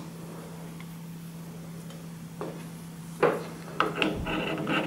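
A metal door handle and its long backplate clicking and rattling as they are handled and offered up to a uPVC door, over a faint steady hum. Two single clicks come about two and a half and three seconds in, then a short run of metallic clicks near the end.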